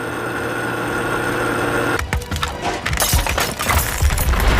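Steady music-like tones, then from about two seconds in a structure breaking up during demolition: dense cracking and splintering, with a low rumble building near the end.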